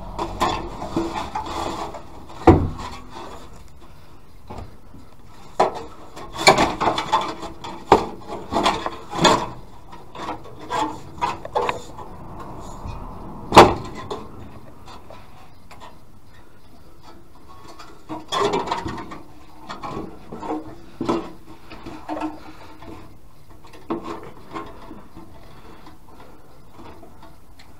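Irregular knocks, clatters and rubbing from a VW Caddy van's thin metal underbody heat shield being pushed and moved against the new exhaust pipe; two sharp knocks stand out, about two and a half seconds in and near the middle, and the last few seconds are quieter.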